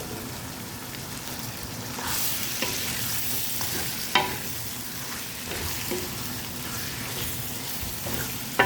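Chicken curry frying and sizzling in a pan while it is stirred. The sizzle grows louder about two seconds in, and a utensil knocks sharply against the pan once about four seconds in and again near the end.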